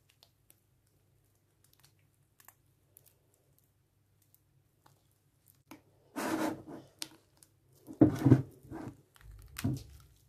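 Green slime being squeezed and kneaded by hands in a glass bowl of water: faint small clicks at first, then three louder wet squishes, about six, eight and nine and a half seconds in, the one at eight the loudest.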